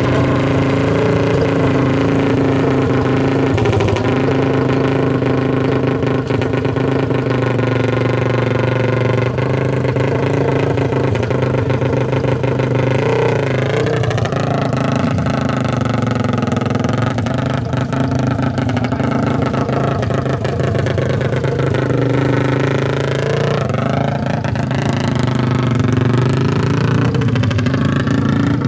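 Four-stroke 450 race ATV engines running at idle. The engine note swings down and back up around 13 seconds in, and rises again around 23 seconds in, as the throttle is worked.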